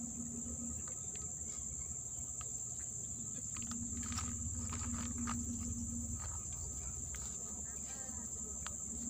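Insects chirring in one steady, unbroken high-pitched drone, with a few faint clicks over it.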